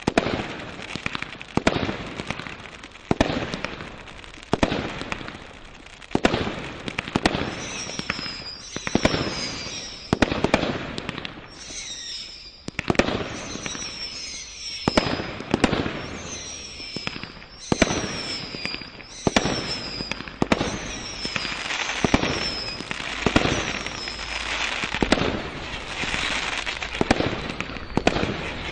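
Brothers Pyrotechnics Crystal Flare firework cake firing a steady run of shots, a sharp report roughly every second as each shell goes up and bursts. Through the middle of the run come short high whistles that fall in pitch.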